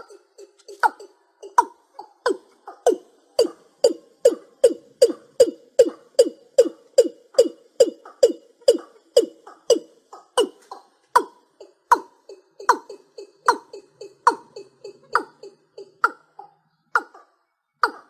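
Watercock calling: a long series of short notes, each falling in pitch. The notes come about two and a half a second through the first half, then slow to a little over one a second.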